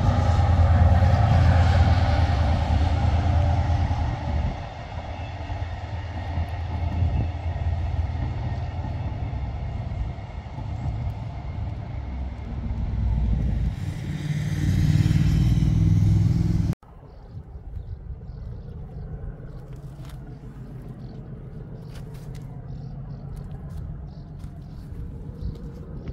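Diesel train engine running loud and low as a train passes. It swells again shortly before an abrupt cut about two-thirds of the way in, after which only a quieter rumble with scattered clicks remains.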